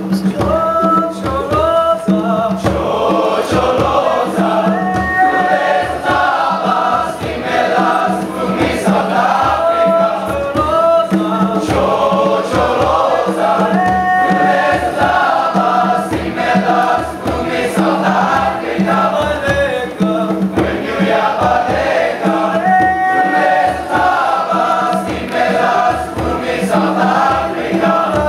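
A boys' choir singing in several parts, with a steady low repeated bass figure under the melody, accompanied by a hand drum beating regularly.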